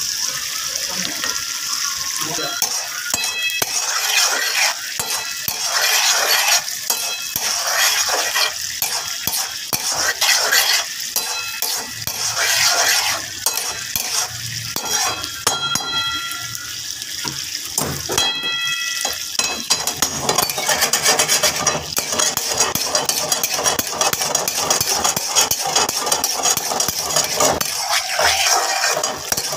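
A metal spatula stirring and scraping around a karahi of mutton in a thick cream sauce over a gas flame, with quick repeated scrapes and clinks against the pan, over a steady sizzle of frying.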